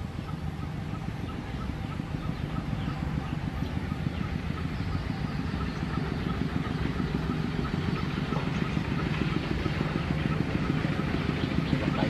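An engine running steadily and growing gradually louder, with faint repeated high chirps above it.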